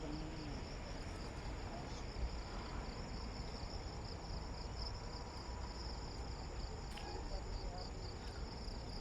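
Crickets chirping steadily in a high, continuous pulsing trill, over a low rumble.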